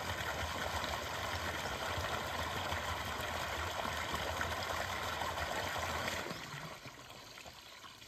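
Water gushing from an outlet in a concrete check dam and splashing steadily into the pool below. About six seconds in the flow is being shut off, and the splashing falls away to a faint trickle.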